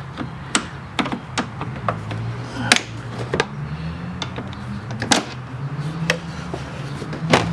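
Irregular sharp clicks and knocks of hand tools on metal as a broken radiator bolt is worked free, over a low steady hum. The loudest knocks come about five seconds in and near the end.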